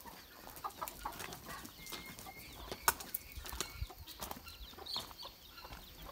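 Domestic chickens clucking, among scattered short clicks and crunches, the sharpest click about three seconds in.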